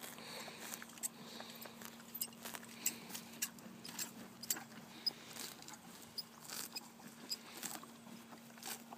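Draft horse grazing: irregular crisp snaps and crunches of grass being torn off and chewed.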